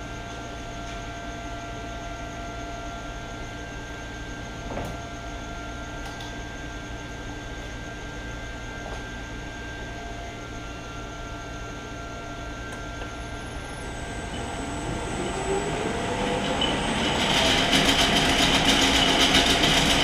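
Clausing 1500 lathe's 7.5 hp three-phase motor running on a variable frequency drive: a steady hum with several thin whining tones, and a single knock about five seconds in. About 14 seconds in, the lathe's gearing and chuck spin up, the pitch rising and the sound growing much louder over about three seconds before running steadily at speed.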